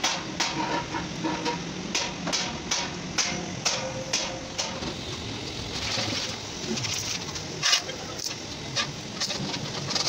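Hammer blows on metal in a steady rhythm, about two to three strikes a second, which stop about halfway through; a single sharp knock comes near the end.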